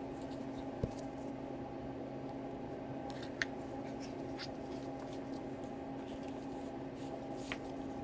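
Steady low hum with a few faint ticks and rustles of gloved hands handling a laptop charger's cord and sliding heat-shrink tubing onto it.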